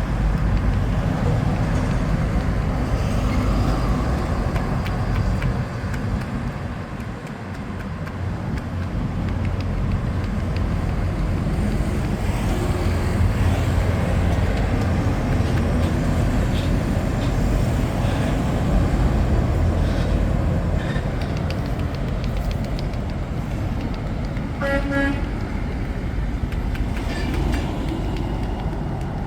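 Road traffic running steadily, with a short horn honk near the end.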